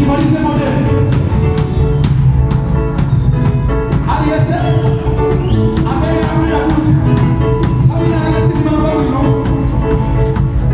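A live church band plays a gospel song on drum kit, electric guitar, bass guitar and keyboard, with the drums keeping a steady beat. Singing voices come in over the band.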